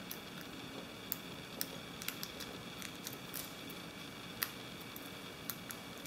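Faint, irregular small metal clicks of a lock pick and tension wrench working the pin stack of a Commando pin-tumbler padlock during single-pin picking, about ten ticks spaced unevenly over a faint steady background hum.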